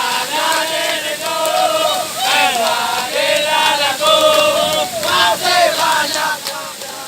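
A group of voices singing a song together in unison, loud and chant-like, with long held notes.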